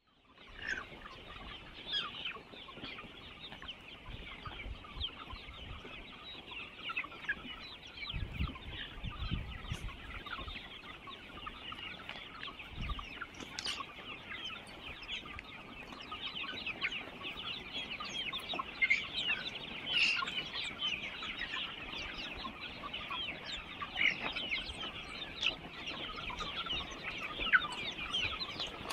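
A large flock of young chickens calling continuously, many overlapping high peeps and clucks at once.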